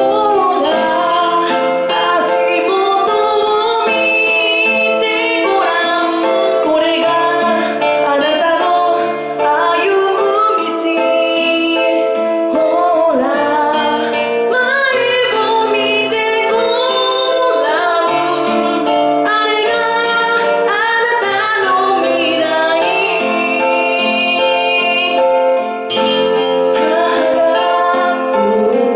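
A woman singing a Japanese pop ballad live into a handheld microphone, her voice amplified, over a sustained piano accompaniment.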